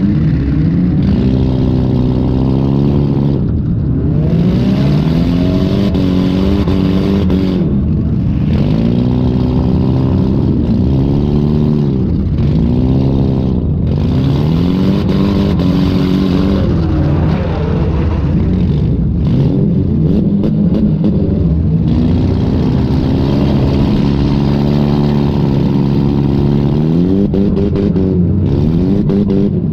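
Demolition derby car's engine, heard from onboard, revving hard and dropping off again and again as the car accelerates and backs off.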